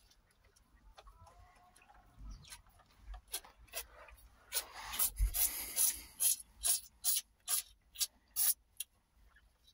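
Calf sucking milk from a plastic feeding bottle's rubber teat, a run of quick slurping, squelching sucks about two to three a second that starts about three seconds in and stops near the end.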